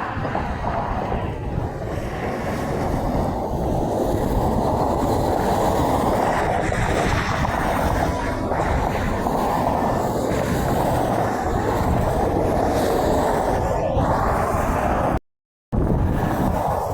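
Steady roar of heavy interstate traffic, semi trucks running past with tyre and engine noise, and no horn sounding. The sound drops out completely for about half a second near the end.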